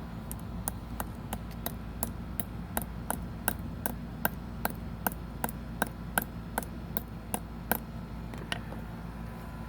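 Hammer tapping lightly and repeatedly on a fidget spinner: short, sharp taps in an even rhythm of about three a second, stopping about a second before the end.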